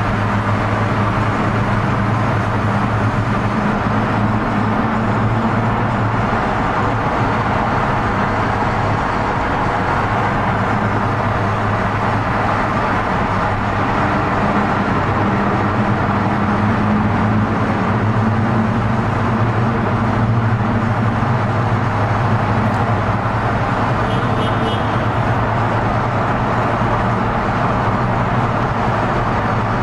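Car engine and road noise: a steady low drone whose pitch drifts only slightly, as of a car travelling at an even speed.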